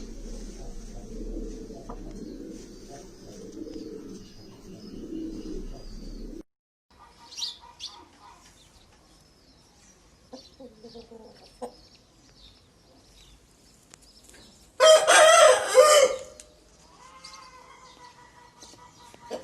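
Parrot-beak aseel rooster crowing once, loud and about a second and a half long, some fifteen seconds in, with soft clucks and calls before and after it. A low rumbling noise with a hum fills the first six seconds and cuts off suddenly.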